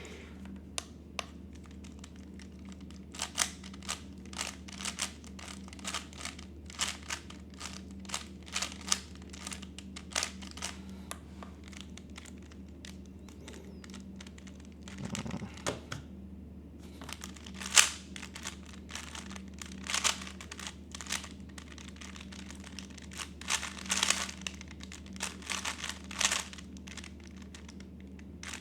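A 3x3 Rubik's speedcube being turned fast by hand. Its plastic layers give rapid, irregular clicks and clacks in quick clusters. A low steady hum runs underneath.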